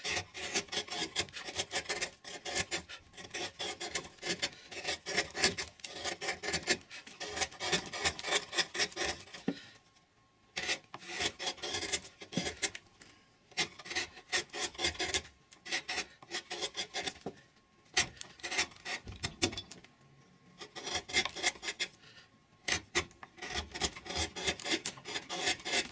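Wide woodcarving gouge pushed by hand through a block of wood in quick, short cuts, shaving after shaving, as the ridged surface is smoothed into a level plane. The cutting stops briefly a few times, around ten, eighteen and twenty seconds in.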